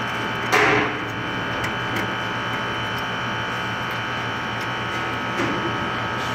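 Gas furnace motor humming steadily. A brief loud clatter comes about half a second in, with a smaller one near the end.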